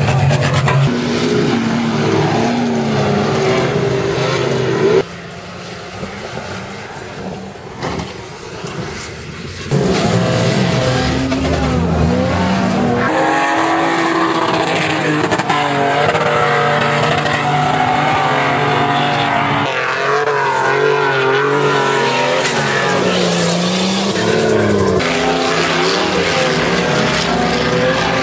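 Off-road 4x4 engines revving hard under load, their pitch rising and falling as the trucks power across and up sand dunes. The sound shifts with each new vehicle and drops quieter for a few seconds about a fifth of the way in.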